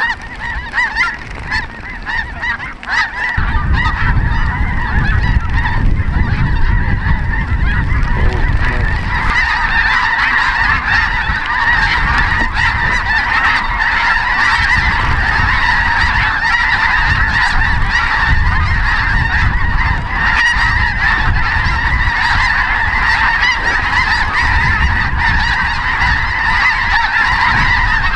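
A huge flock of snow geese calling overhead: a continuous din of many overlapping high yelps and honks. A low rumble joins in about three and a half seconds in.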